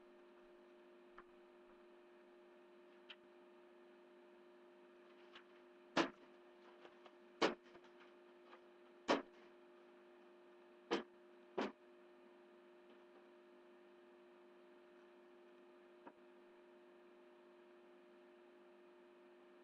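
A steady electrical hum, with about five sharp knocks or taps between about six and twelve seconds in, plus a few faint ticks.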